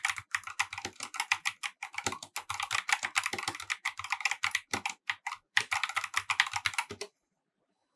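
Fast typing on a Corsair K70 RGB TKL OPX keyboard with optical-mechanical linear switches: a dense run of keystroke clacks. The clacks pause briefly a little after five seconds in and stop about seven seconds in.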